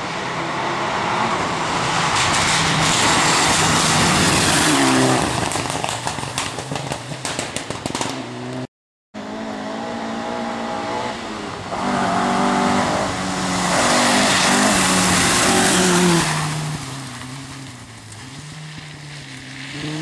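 Two rally cars in turn driving hard past on a gravel forest stage, engines revving and changing gear, with a run of sharp crackles as the first one goes by. The second car's engine fades as it draws away near the end.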